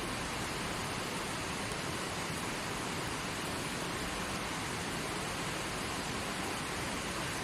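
Mountain river rushing over rocks in its bed, a steady, unbroken water noise.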